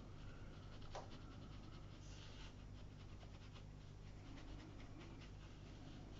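Faint scratchy brushing of a watercolour brush worked over paper in many short, quick strokes, laying in reeds, over a low steady hum.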